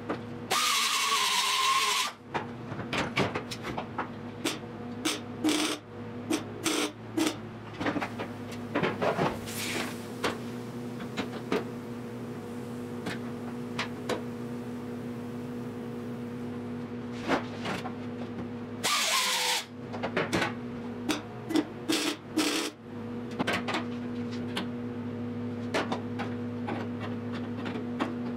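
MIG welder laying two plug welds on a steel car-roof panel, each weld a loud burst of about a second and a half, one near the start and one about nineteen seconds in, with a whine dropping in pitch under each. A steady hum runs underneath, with scattered clicks and taps between the welds.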